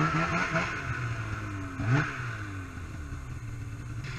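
Snowmobile engine running under throttle, its pitch rising and falling as the throttle is worked. About two seconds in it gives one quick sharp rev, then runs steadier at a lower pitch.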